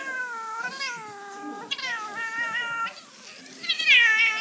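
Angry domestic cat yowling "unyaa": three long, wavering, drawn-out yowls in a row. The third is the loudest.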